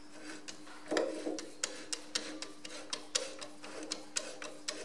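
Sharp, irregular metal clicks, about two or three a second, as a long screwdriver works the adjusting screw in the draft link spring housing of a Ferguson FE35 tractor, taking up the spring's end play.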